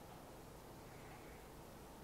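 Near silence: faint, steady room tone.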